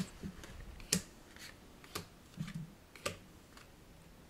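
Magic: The Gathering cards being handled and laid down on the table: four light, sharp clicks about a second apart.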